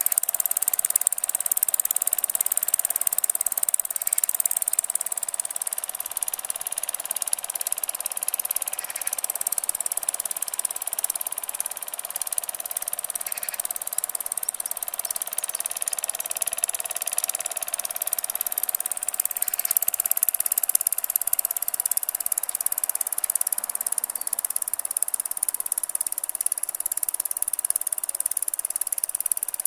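Small scratch-built single-cylinder model steam engine running fast and steadily: a rapid, even chuffing rattle over a constant hiss.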